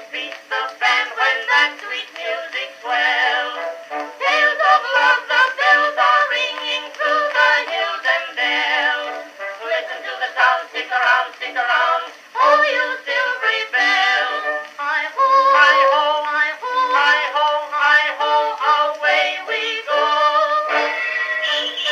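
Edison Amberola 30 cylinder phonograph playing music from a cylinder record through its horn, with a thin, horn-like sound that has no bass.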